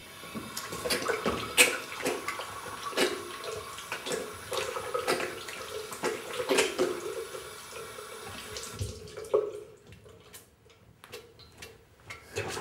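Water running from a mixer tap into a ceramic washbasin while a man scoops it in his hands and splashes it onto his face, a quick run of splashes. The water stops about eight or nine seconds in, leaving a few small clicks and drips.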